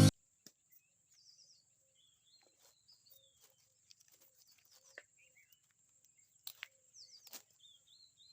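Quiet outdoor ambience: a steady high insect trill with birds chirping now and then, and a few light sharp knocks, the loudest two near the end.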